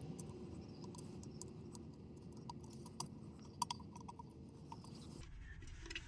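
Faint small clicks and taps of a fog lamp bulb and its housing being handled, over a low rumble that fades and drops out about five seconds in.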